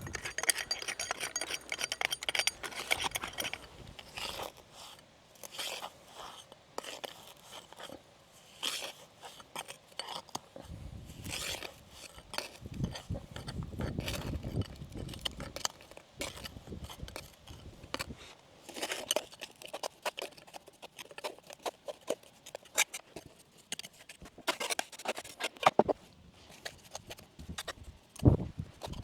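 Irregular scraping and clinking of a hand tool working lime mortar and stone on an old stone wall, in short strokes with pauses between.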